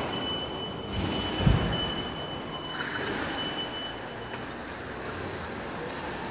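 Joloda Trailerskate automatic truck-loading system running, carrying a load of stacked truck tyres along its track: a steady mechanical rumble with a thin high whine that stops about four and a half seconds in, and a single knock about a second and a half in.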